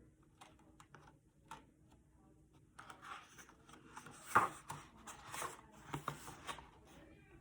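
Pages of a picture book being handled and turned: a few faint clicks, then from about three seconds in a run of paper rustling and crackling, with one sharper snap halfway through.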